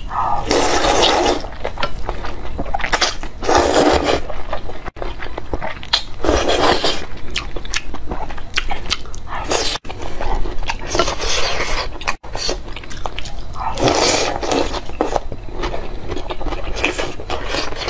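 Close-miked eating sounds from a bowl of noodles: six long slurps a few seconds apart, with softer chewing between them.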